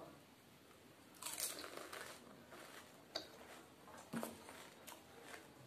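Crunching as a mouthful of puffed fuchka (pani puri) shell is bitten and chewed. The shell is one of the thick, hard, ready-made kind. The crunching starts about a second in with a quick burst of crackles, then comes back as single crunches every second or so.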